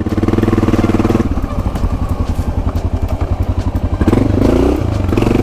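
Honda XR650 single-cylinder motorcycle engine running under load, then revving up with a rising pitch about four seconds in.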